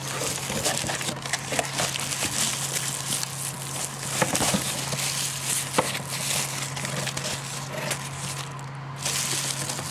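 Packaging being handled: rustling and crinkling with scattered clicks and a few sharper knocks, over a steady low hum.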